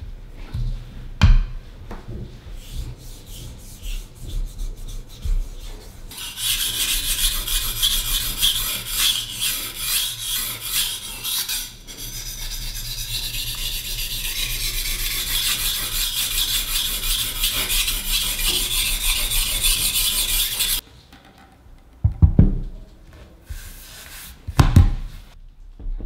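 Japanese-style steel kitchen knife sharpened on a wet whetstone: rapid back-and-forth strokes make a steady rasping scrape. It follows a few knocks from the stone being set in place and stops suddenly, and a couple of dull thumps come near the end.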